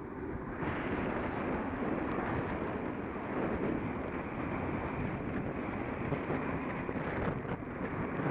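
Wind rushing over a Contour Roam action camera's microphone on a moving bicycle: a steady, even rush of noise.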